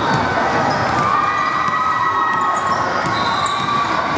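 Spectators shouting and cheering at a basketball game, with a basketball bouncing on the hardwood court, echoing in a large sports hall.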